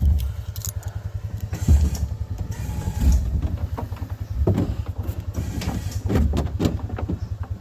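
An engine running steadily with a fast, even pulse, with several knocks and clunks as the garage-door-panel box blind is hoisted and shifted into place.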